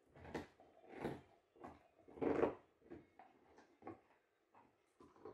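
Akita Inu dogs gnawing on frozen raw marrowbones: irregular wet crunches and scrapes of teeth on bone, about one every half second to second, the loudest a little over two seconds in.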